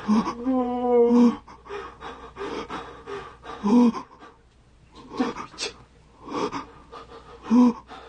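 Short voiced gasps and breaths, one every second or so, with a longer wavering voiced sound near the start.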